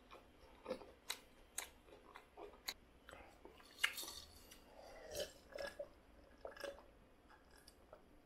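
Close-miked mouth sounds of a person chewing a last mouthful of noodles with his mouth closed: soft wet smacks and clicks at irregular intervals, with one sharp click about four seconds in.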